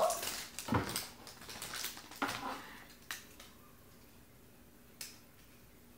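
Thin clear plastic wrapper crinkling and rustling as it is pulled off small plush toy figures by hand: dense crackles for the first couple of seconds, thinning to a few faint clicks.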